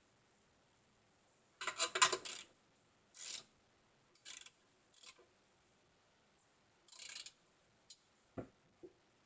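Metal bike parts being handled during reassembly: a cluster of quick clicking rattles about two seconds in, then several shorter rattles, and a single dull knock near the end.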